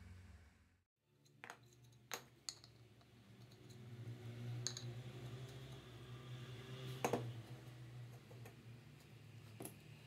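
Scattered light clicks and taps of small hard parts being handled: PVC end caps slid on a brass shaft and thin plastic blade strips picked up, about half a dozen sharp clicks over a low steady hum.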